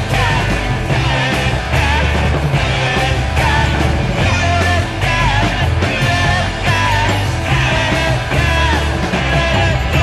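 Fuzzed-out garage punk rock playing from a vinyl test pressing on a turntable, with a steady driving beat.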